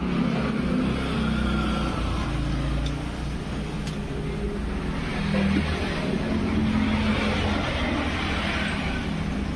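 Motor vehicle engines running steadily in street traffic, a constant low hum over a wash of road noise.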